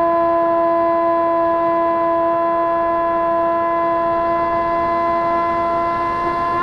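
Electric motors and propellers of an FPV model aircraft, heard through its onboard camera: a steady whine held at one pitch, beginning to rise right at the end as the throttle comes up.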